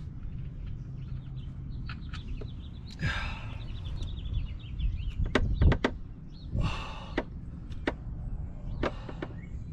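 Hand tools knocking and clanking against the oil drain plug under a C5 Corvette as a stuck plug is being worked loose. There is a quick run of sharp knocks about halfway through and single knocks later on, along with two short rushes of noise.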